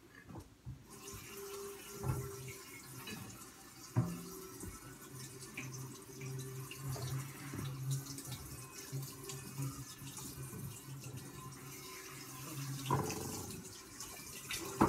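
Kitchen tap running into a sink, turned on about a second in, as something is washed under it, with a couple of knocks of dishes against the sink.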